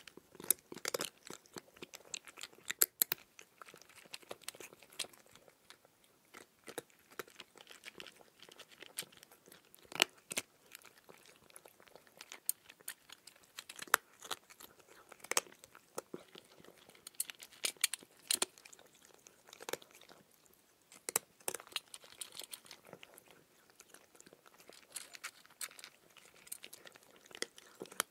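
Irregular crisp crunches and clicks, several a second with louder snaps every second or two, like something being chewed.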